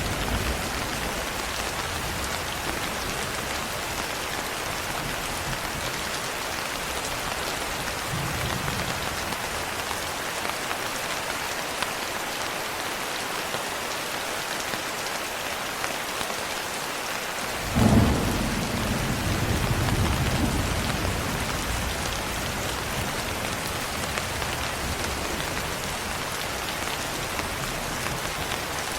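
Steady rain falling, with a sudden thunderclap about two-thirds of the way through that rumbles on for a few seconds.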